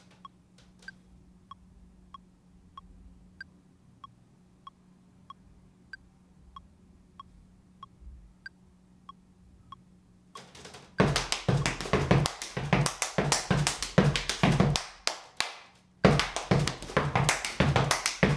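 Metronome clicks, a pitched tick about every 0.6 s with some ticks higher than others. About ten seconds in, steppers start stomping and clapping a routine in time, loud and rhythmic, with a brief break shortly before the end.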